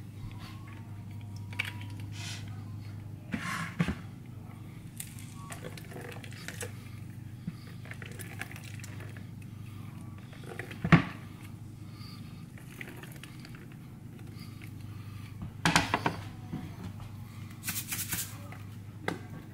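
Kitchen handling noises: scattered clicks and knocks of a knife and a metal hand lime squeezer on a plastic cutting board, with one sharp knock about halfway through and a cluster of knocks near the end, over a steady low hum.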